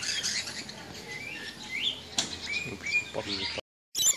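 A flock of parrots chirping: many short, rising, overlapping calls. The sound drops out completely for a moment near the end.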